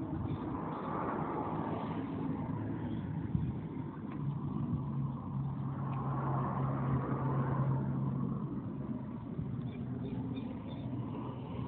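Motor vehicle noise: an engine hum with road noise that swells and fades, loudest about two-thirds of the way through.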